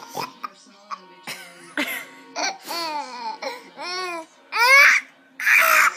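Baby laughing in a string of short, high-pitched squeals and giggles that rise and fall in pitch, getting louder towards the end, with a breathy, noisy burst near the end.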